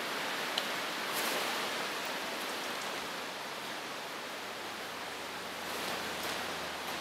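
Steady, even hiss of distant rushing water, with a faint click just over half a second in.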